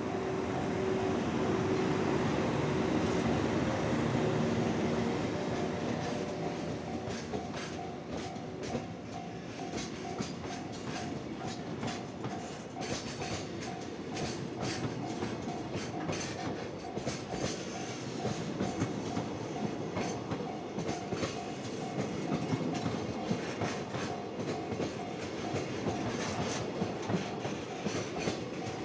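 Freight train passing. The electric locomotive goes by first with a steady motor whine, followed by a long string of freight wagons clicking over the rail joints. A repeating beeping tone sounds throughout.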